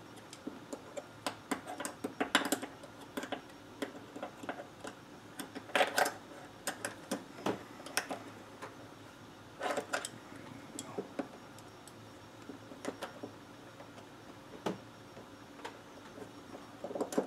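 Irregular clicks, taps and light clatter of a cheap adjustable fuel line disconnect tool being worked by hand against a fuel line's spring-lock quick-connect fitting, with a few louder bursts of clicking. The tool is going in from the back side instead of the front, so the fitting does not release.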